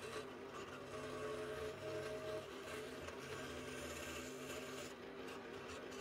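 Scroll saw running steadily with a low hum while it cuts out an inside hole.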